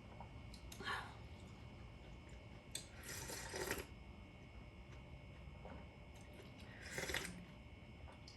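Faint eating sounds from a person's mouth: a few short, noisy bursts a couple of seconds apart, over a low steady hum.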